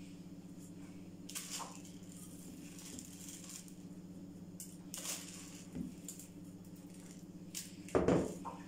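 Washed rice grains being tipped and scooped from a plastic bowl into small earthenware tagines: a few short soft rustling clatters of the grains, the loudest near the end, over a steady low hum.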